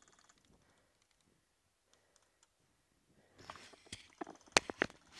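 Near silence, then from about three seconds in, irregular sharp clicks and rustling close to the microphone as a cloth bandana brushes over the head-mounted camera.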